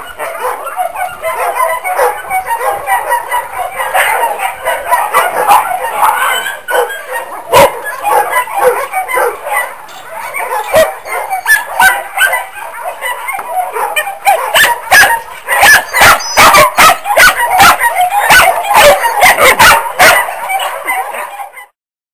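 A large pack of kennelled shelter dogs barking and yelping all at once, a dense overlapping chorus of barks. It grows louder and sharper in the second half, then cuts off suddenly near the end.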